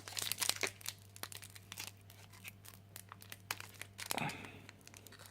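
Foil wrapper of a Magic: The Gathering booster pack crinkling and crackling irregularly as it is worked and torn open by hand; the pack is hard to open.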